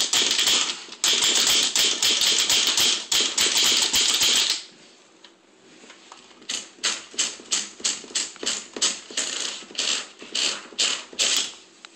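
Brother Valiant typewriter being typed on: a loud, fast, dense run of keystrikes for about four and a half seconds, a short pause, then slower separate keystrikes at about three to four a second.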